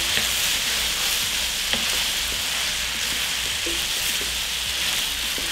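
Stir-fry of chicken, broccoli, bell peppers and onion in sesame sauce sizzling steadily in an electric wok, stirred with a wooden spatula that gives a few light knocks.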